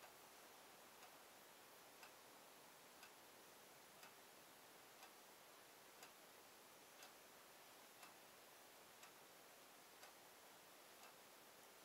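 Near silence with a clock ticking faintly once a second over a light steady hiss.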